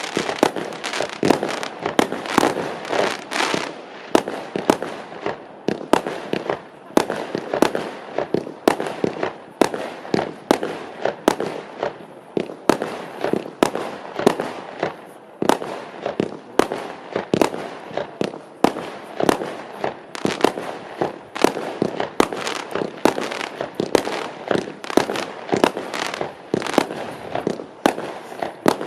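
A 256-shot fireworks cake firing continuously, its shots going off in a rapid irregular string of sharp reports, about two to three a second, with steady noise between them.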